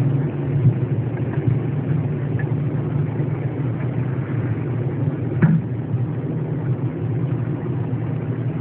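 A steady low rumble, with a single short knock about five seconds in.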